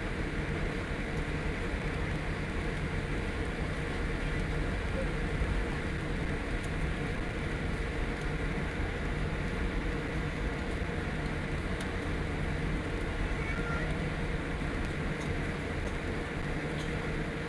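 Steady cabin noise of a Boeing 787 taxiing: a low rumble with a steady hum from the idling engines and the cabin air system.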